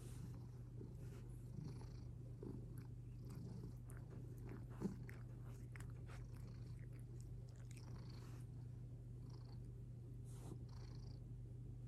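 Domestic cat purring steadily while being stroked, with faint rustles and small clicks and one sharper click about five seconds in.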